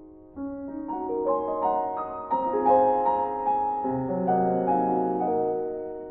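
Background piano music: single notes climb upward, fill out into fuller chords with low bass notes, then fade away near the end.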